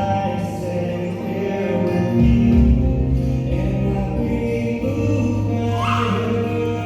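Music with singing voices and sustained bass and chord tones, in a choral or gospel style.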